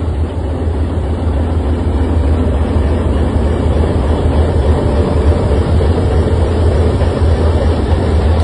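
Diesel locomotive's engine running, a loud steady low rumble with no breaks.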